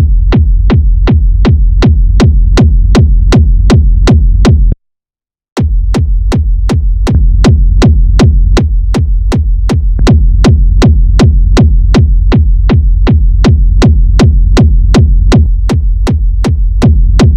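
Hard techno kick drum pounding a steady, fast four-on-the-floor beat through a one-knob 'drop pressure' rack of EQ, auto filter and drum bus drive, with the knob turned up so the kick comes out tighter, denser and more aggressive. It cuts out for just under a second about five seconds in, then picks up again.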